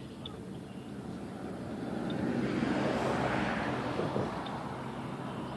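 A vehicle passing by, its noise swelling to a peak in the middle and then fading away.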